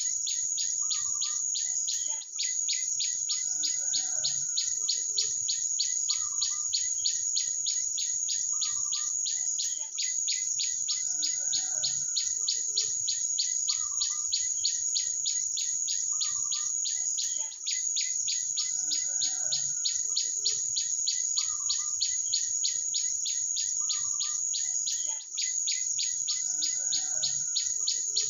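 A loud, steady, fast-pulsing high insect trill with songbirds calling over it in short phrases. The same stretch of sound repeats about every eight seconds, with a brief dip at each join, as if looped.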